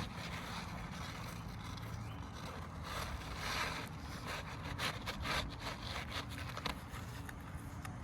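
Asphalt roofing shingles scraping and rustling as they are worked into place, with a few light clicks and taps, over a steady low background rumble.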